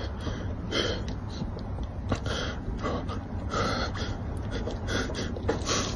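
A man gasping and panting in quick, sharp breaths, about two a second, over a steady low rumble: cold-shock breathing while sitting in an ice-cold water tub.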